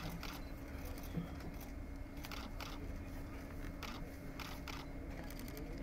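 Quiet background with a faint steady hum, broken by scattered short clicks and rustles, with a quick run of clicks near the end.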